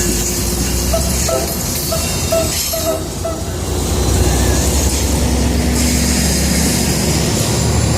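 Tri-Rail diesel-hauled commuter train passing with a steady low engine rumble and wheel-on-rail noise that grow louder after about four seconds. During the first three seconds or so the engineer gives a string of quick, short horn toots.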